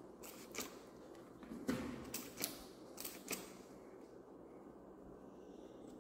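Faint, irregular clicks and taps of two kittens' claws and paws on a tiled floor as they wrestle and scamper, coming thickest in the first half and dying away over the last two seconds.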